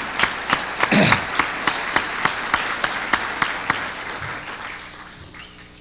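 Banquet audience applauding, a dense patter of clapping that dies away over the last second or two.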